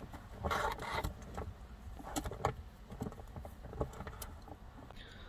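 A socket ratchet on an extension clicking in short runs as it unscrews a 10 mm nut, with scattered light ticks of metal on the nut.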